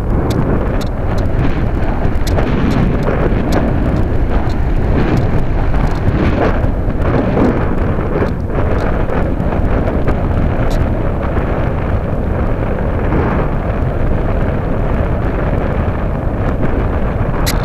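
Steady, loud rush of airflow over the microphone of a small camera carried on a Radian RC powered glider in flight, with a few faint ticks.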